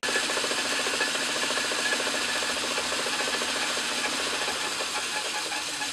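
Metal lathe running with its four-jaw chuck spinning, a steady mechanical whir with a fast fine chatter, as a brass boss is turned down to a 1/4 inch diameter.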